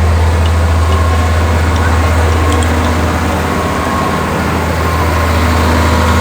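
Large engine of heavy road-construction equipment or a truck running steadily with a deep, even hum.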